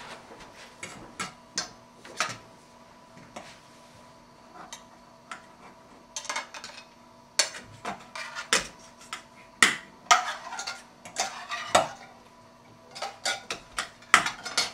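Cutlery clinking and scraping against plates and dishes: irregular sharp taps and clicks with short ringing, sparse at first and more frequent from about halfway through.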